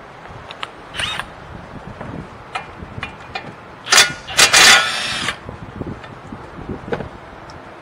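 Cordless power tool with a 22 mm socket loosening a brake caliper bracket bolt, run in a brief burst about four seconds in and then a longer burst of about a second. Light clinks of metal tools come before it.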